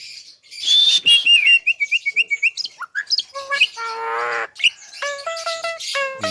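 Javan myna calling: a quick run of high down-slurred whistles, then a harsh buzzy call, then a series of short, clear, evenly repeated notes near the end.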